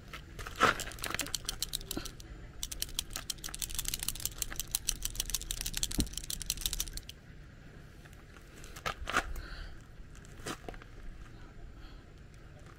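Car touch-up paint pen being shaken hard, its mixing ball rattling inside in rapid clicks, to mix the paint before use. The shaking stops about seven seconds in, followed by a few separate clicks of handling.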